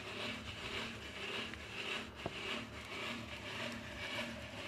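Steady rhythmic scraping, about two strokes a second, from the tinning of a heated copper pot, with a single sharp click about halfway through.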